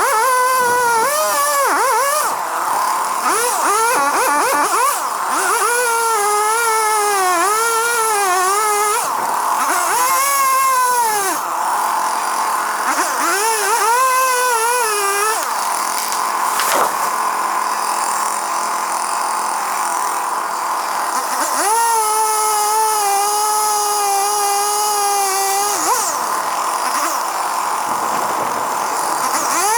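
A machine's high whine that rises and falls in pitch over and over, holding one steady pitch for about four seconds near the end.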